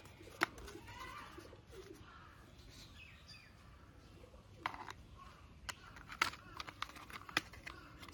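Hard plastic toy car parts clicking and knocking as they are handled and fitted together, in a few sharp separate clicks.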